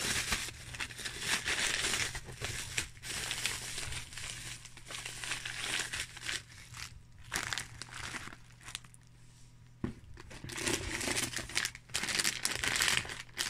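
Plastic snack packets and bubble-wrap packaging crinkling as they are handled, in irregular bursts; it dies down for a couple of seconds past the middle, then is louder again near the end.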